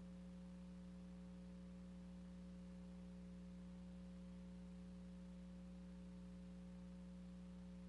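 Near silence with a faint, steady electrical hum and light hiss: the background noise of a silent film transfer, not the helicopter.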